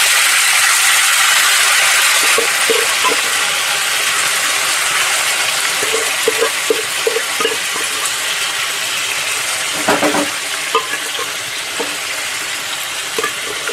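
Boiled mutton pieces frying in hot oil in a kadhai with green chillies: a steady sizzling hiss that slowly eases, with a few light clicks and taps.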